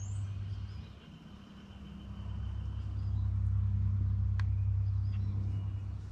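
Low, steady motor drone of a distant vehicle, building about two seconds in and easing off near the end. Faint songbird chirps over it and a single sharp click about four seconds in.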